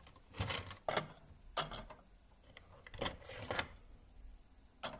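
Strips of lead knocking and clinking against an aluminium melting pot as they are put in: about half a dozen separate sharp knocks, some ringing briefly, spread over the first three and a half seconds.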